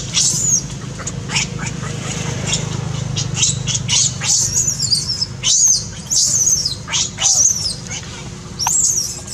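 Baby macaque giving repeated shrill, high-pitched distress squeals, each call arching up and down in pitch, coming in quick runs through the second half, over a steady low hum.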